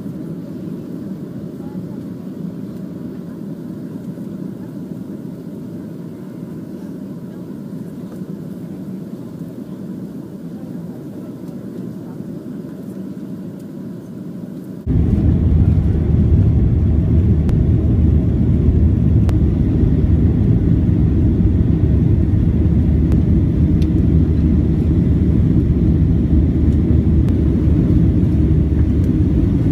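Cabin noise inside a Boeing 737 in flight: a steady low drone of the jet engines and rushing air. About halfway through, it cuts abruptly to a much louder, deeper drone.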